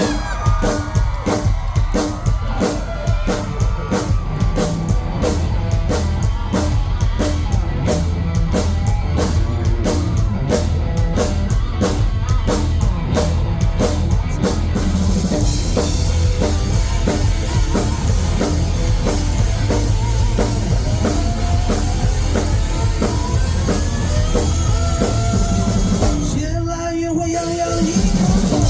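Rock band playing live at high volume: a steady, even drum beat opens, and the fuller band with guitar and bass swells in about halfway through, with a brief break shortly before the end.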